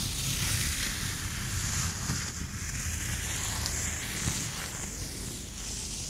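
Textile gloves rubbed and wrung together close to the microphones, a continuous swishing rustle of fabric on fabric that swells and eases as the hands move.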